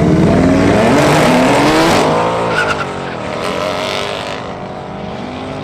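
Race car engine sound effect, revving up, dropping off and climbing again over a hiss of tyre noise. It is loudest for the first two seconds, then quieter.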